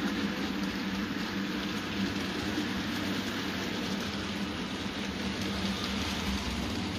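Model goods train running past on the layout: a steady rattling rush of wagon wheels on the track, with the locomotive's motor hum easing off after the first second or two as the wagons follow.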